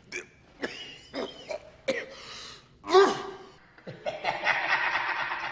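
A person's voice in about six short, sharp bursts over the first three seconds, then, from about four seconds in, a steady even noise.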